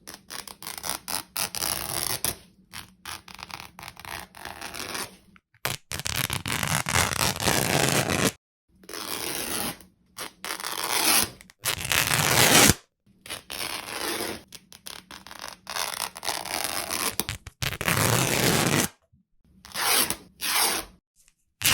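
Cloth being torn again and again: a dozen or so separate rips, some short and quick, some long and drawn out, with short pauses between them.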